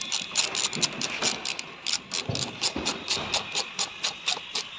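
Socket ratchet wrench clicking rapidly, about five or six clicks a second, as a socket on an extension turns a radiator-bracket mounting bolt. There are a couple of dull knocks partway through.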